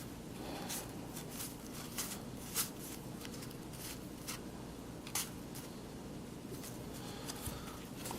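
Baseball trading cards being handled and flipped through: scattered soft flicks and taps of card stock every second or so, over a faint steady hum.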